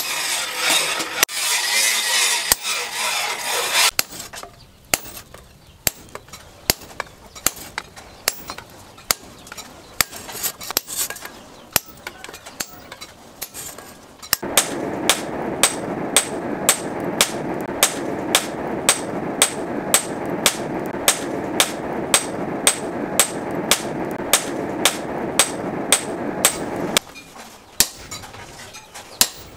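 Sledgehammer blows on a hot steel chainsaw guide bar at the anvil, struck onto a handled set tool held on the steel. The blows are irregular at first and then settle to a steady rhythm of about two a second. A steady rushing noise runs under them from about halfway until shortly before the end.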